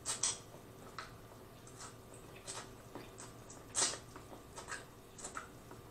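Close-miked eating: bites into corn on the cob and chewing, a string of short wet clicks and smacks, loudest just at the start and again about four seconds in.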